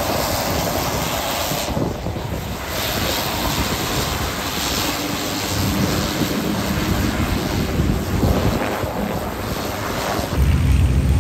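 Epic E1000 single-engine turboprop taxiing, its engine and propeller running steadily at low power. Wind buffets the microphone near the end.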